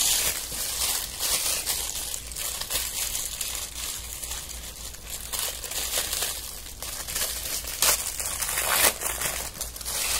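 Paper packaging being unwrapped by hand: tissue paper and wrapping crinkling and rustling unevenly, with two sharper crackles near the end.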